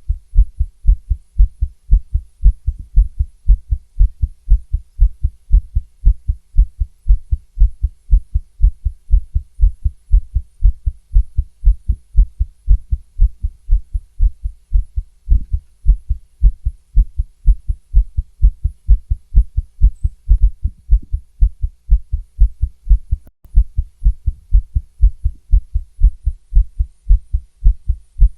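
A woman's fast heartbeat heard through a stethoscope: a quick, steady run of low lub-dub thumps.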